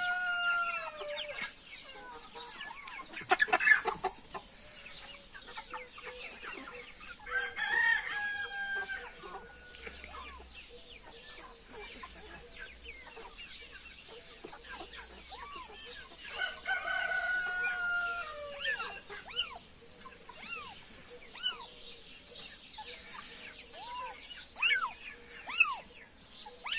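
Rooster crowing three times, each a long drawn-out call, with chickens clucking in between. Many short rising-and-falling calls come in quick succession near the end.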